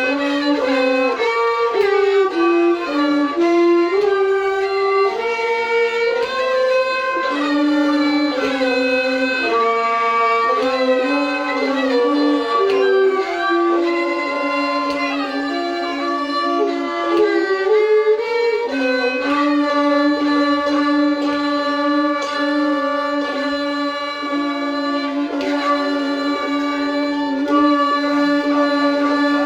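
A bowed fiddle playing a Thai classical overture melody, with notes that slide from one pitch to the next. About two-thirds of the way through it settles into long held notes.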